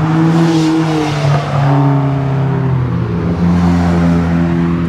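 Car engine revving hard. Its pitch climbs, drops about a second in, climbs again and then holds high.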